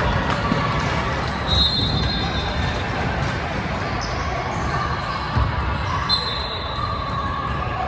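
Basketball dribbling and bouncing on a gym floor amid the hall's crowd murmur and voices. Two high, thin squeaks of about a second each come early and again late.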